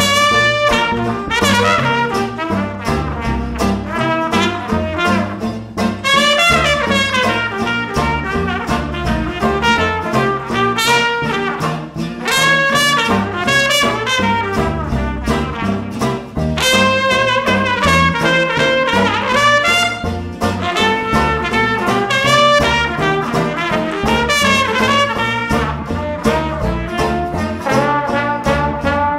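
Traditional jazz band playing an instrumental chorus: trumpet and trombone carrying the melody lines over a double bass and rhythm section keeping a steady beat.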